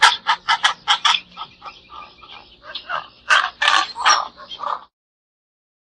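Pelican calls: a quick run of short, harsh notes, about five a second, then a few longer squawks in clusters, stopping about five seconds in.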